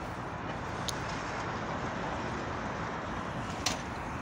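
Steady hum of road traffic, with two brief clicks, one about a second in and one near the end.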